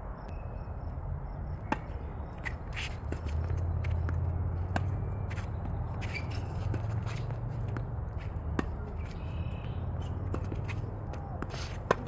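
Tennis ball being hit back and forth in a rally: sharp racket-on-ball hits about every three seconds, the loudest a forehand near the end, over a steady low rumble.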